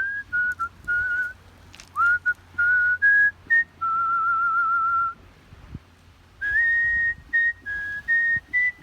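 A person whistling a melody by mouth: separate sliding and stepped notes, a long note held with vibrato, a pause of about a second, then the tune resumes.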